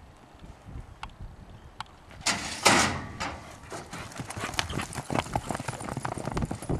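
Quarter horse's hooves clip-clopping on the ground: a few scattered knocks, then a quick, dense run of hoofbeats from about three seconds in. A short, loud rushing noise a little past two seconds is the loudest sound.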